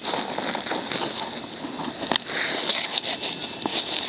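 Open off-road buggy driving on a wet paved road: a rough, crackling rush of driving noise with scattered clicks and knocks. No clear engine note comes through.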